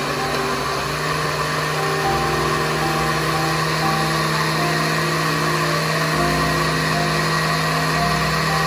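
Countertop blender running at a steady speed, its motor whirring as it blends a liquid smoothie mixture. Soft background music plays underneath.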